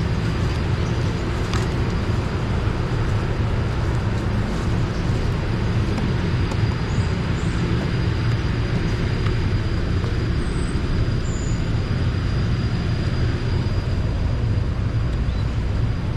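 Steady outdoor background noise: a constant low rumble with a hiss above it, and a few faint, short high chirps near the middle.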